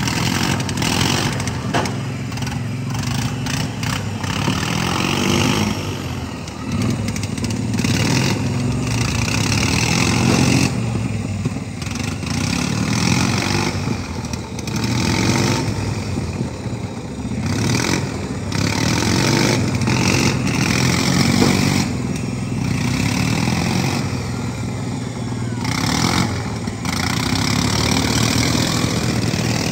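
Several pro-modified lawn mower engines running together, their pitch rising and falling over and over as the drivers rev and ease off.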